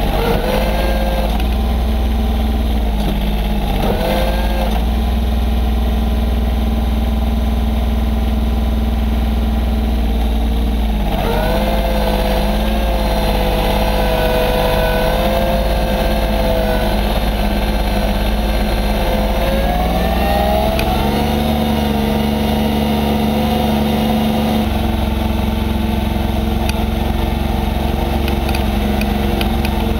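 Massey Ferguson 1020 compact tractor's diesel engine running steadily. A higher whine rises in briefly twice in the first few seconds, then holds for about ten seconds from about a third of the way in.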